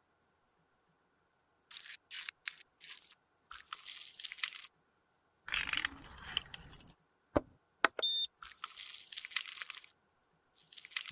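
Close-up ASMR handling sounds in short bursts separated by dead silence. About halfway through, rubbing alcohol is poured splashing into a stainless-steel tray of tools. Two sharp clicks and a brief high metallic ring follow, then more rustling.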